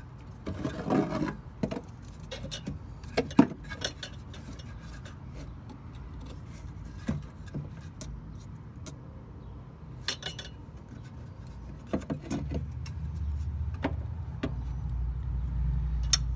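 Scattered metallic clicks and knocks of the old voltage regulator, its wired terminals and tools being handled by hand. A low steady rumble comes in about twelve seconds in and grows louder toward the end.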